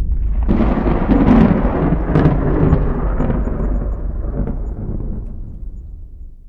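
A long roll of thunder that swells about half a second in and slowly fades away near the end.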